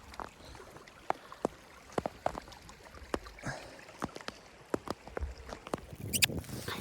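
Irregular light clicks and knocks, a few to each second, over a faint background, with a short louder rustle near the end.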